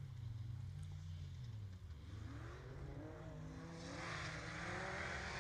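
Off-road safari racing car's engine running and revving up and down as it drives the course. A hissing rush grows louder about four seconds in.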